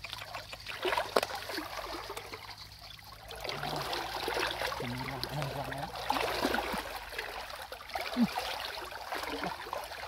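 Shallow, muddy, flowing canal water trickling and sloshing around hands and legs working through it, with small splashes, louder from the middle on.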